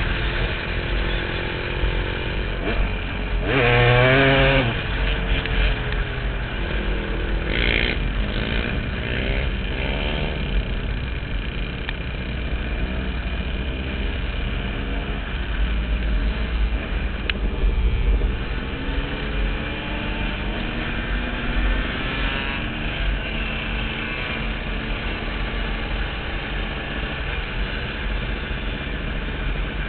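KTM dirt bike engine running under riding load, its pitch rising and dropping again and again as the rider accelerates and shifts gear, with wind rumbling on the helmet-mounted microphone.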